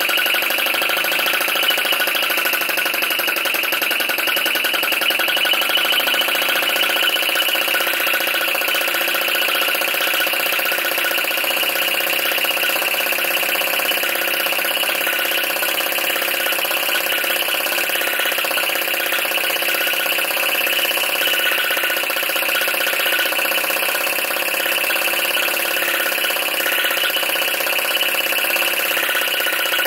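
PM Research Solar Engine #3, a flame-licker vacuum engine, running steadily on its spirit burner's flame with a fast, even mechanical clatter. The burner is set where the engine runs well, and the beat holds steady throughout.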